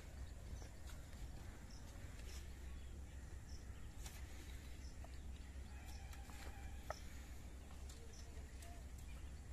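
Faint outdoor ambience: a steady low rumble under a small high chirp that repeats about once a second, with a few light clicks and taps. One sharper click comes near the end.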